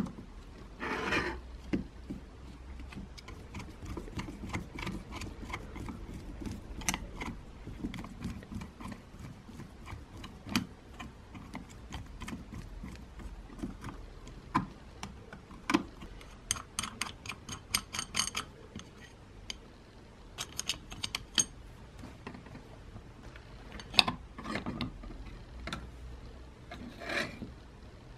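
Screwdriver work on a small metal mixer motor housing: irregular clicks and scrapes as the blade turns small screws out, with two short runs of rapid metallic ticking in the second half and one louder knock as the parts are handled near the end.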